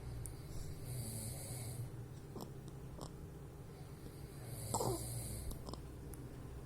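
Baby snoring in sleep: a low rattling rumble on each breath, with two louder snoring breaths, about a second in and just under five seconds in.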